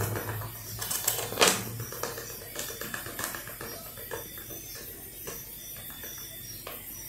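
Plastic bag of tapioca starch crinkling and rustling as the starch is poured into a drinking glass, with scattered crackles and one louder crackle about one and a half seconds in.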